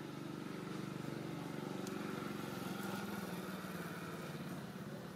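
A motorcycle engine running steadily at low revs, swelling slightly in the middle and easing off toward the end.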